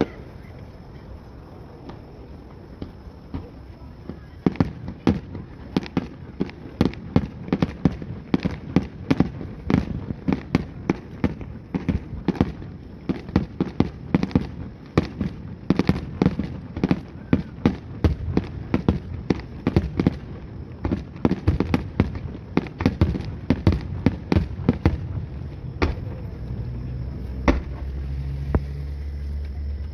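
Fireworks display: after a few quiet seconds, a rapid, dense run of sharp bangs and crackles from bursting shells, with a low rumble near the end.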